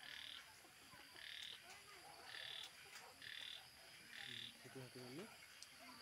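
Faint frog calls: a short croak repeated about once a second, each lasting under half a second.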